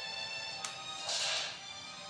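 Background music with sustained, steady tones. About a second in there is a short, noisy swish lasting about half a second, the loudest moment.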